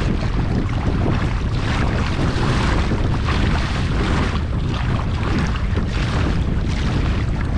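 Wind buffeting the microphone over water sloshing and splashing against a kayak's hull on a choppy sea, as a steady rushing noise.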